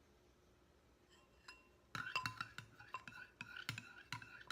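A spoon stirring glue in a bowl, clinking against its side about four times a second, starting about two seconds in.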